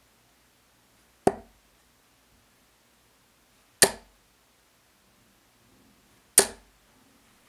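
Three 24 g Red Dragon Robert Thornton tungsten steel-tip darts striking a bristle dartboard one after another, about two and a half seconds apart, each a single sharp impact.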